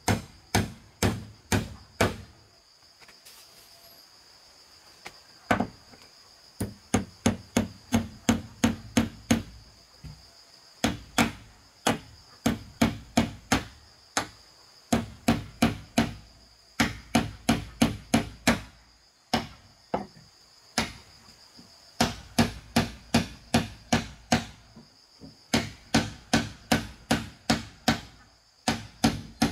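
Hand hammer striking, probably nailing wood, in runs of about two to three blows a second with short pauses between runs. A steady high insect buzz sounds underneath.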